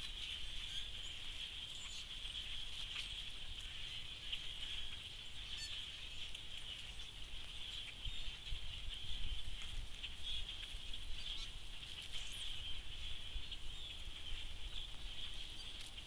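A large flock of blackbirds calling all together: a steady, dense chatter of many overlapping high calls.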